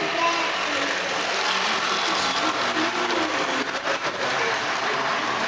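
HO scale model passenger train, led by a Southern Pacific SDP45 model, rolling past on the track with a steady whirring, rattling run of motor and wheels on rail.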